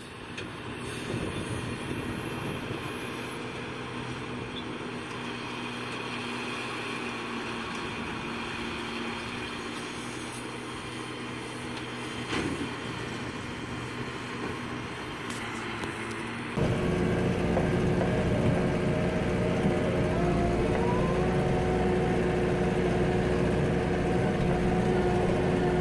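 John Deere tractors running while pulling round balers. About two-thirds of the way through, the sound cuts to a louder, steady engine sound with a different pitch, heard from inside a tractor cab.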